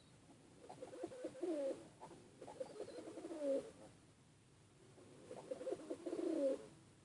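Domestic pigeon cooing in three bouts of rolling, gliding coos, about a second or so each, separated by short pauses.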